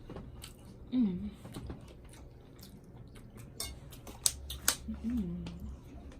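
Eating during a mukbang: chewing, with scattered sharp clicks and taps, the loudest a little past the four-second mark. A short hummed voice sound comes about a second in and another near the five-second mark.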